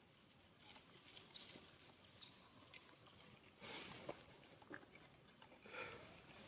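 Near silence with scattered faint crackles and ticks, and one brief, louder rustling noise a little past halfway.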